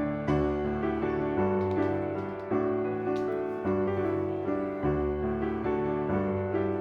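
Background piano music: gentle chords changing about once a second.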